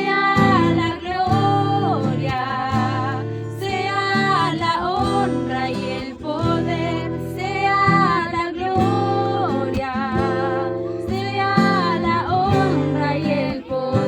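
Singing with acoustic guitar accompaniment, a sung melody with vibrato over strummed chords, typical of a Christian worship song.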